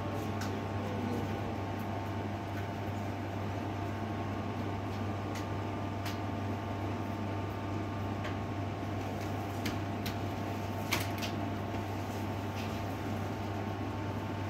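Steady machine hum with a few faint clicks, one a little louder near the end.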